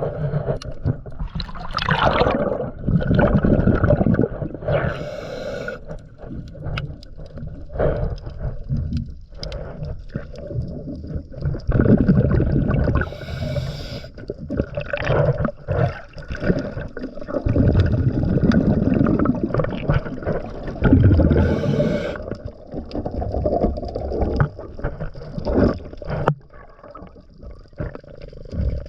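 A diver's regulator breathing underwater: short hissing inhalations about every eight or nine seconds, each followed by long, gurgling rumbles of exhaled bubbles.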